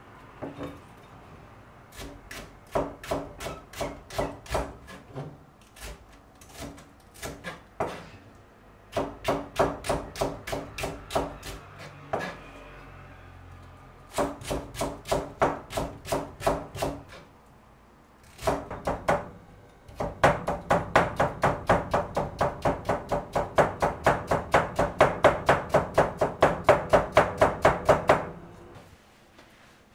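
Kitchen knife finely slicing myoga and ginger on a plastic cutting board: runs of quick, even knocks of the blade on the board with short pauses between them. The longest and loudest run comes near the end, at about three to four strokes a second.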